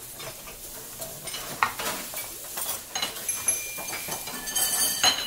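Kitchen sounds: sizzling, with metal utensils clinking and scraping against a pan and several sharp clinks, one ringing briefly about three seconds in.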